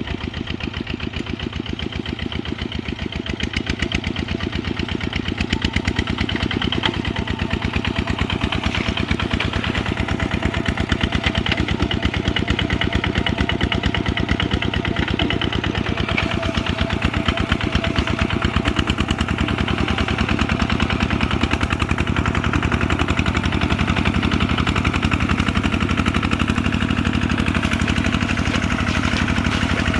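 Kubota RT140's single-cylinder diesel engine running steadily, an even rapid chugging of firing pulses that grows a little louder about five seconds in.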